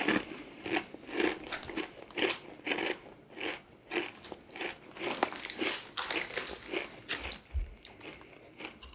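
Walkers MAX ridged potato crisps being bitten and chewed with the mouth close to the microphone: a quick, uneven run of crunches, several a second.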